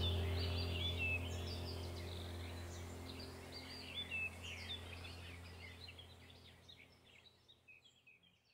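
Birdsong: many short chirps over a low steady drone, the whole sound fading out toward silence by the end.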